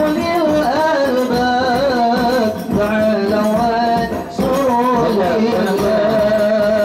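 Hadroh ensemble performing sholawat: a male lead singer carries an ornamented, wavering melody into a microphone over a steady beat of rebana frame drums. The singing breaks briefly between phrases about two and a half and four seconds in.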